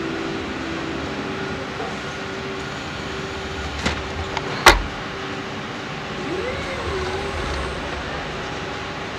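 Pick-and-place robotic palletizer running, a steady mechanical noise with a faint hum. A small knock, then a sharp clank about four and a half seconds in, and a brief whine that rises and falls in pitch a couple of seconds later.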